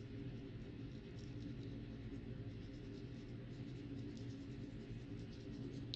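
Faint, scattered scratching and dabbing of a small paintbrush working underglaze into the carved grooves of a ceramic greenware tile, over a steady low room hum.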